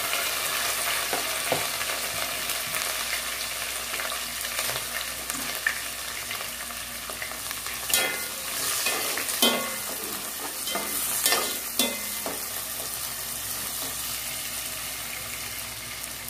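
Sliced onions and green chillies sizzling steadily as they sauté in hot oil with whole spices in a granite-coated pot. A metal slotted spoon stirs them, knocking and scraping against the pot a few times in the middle.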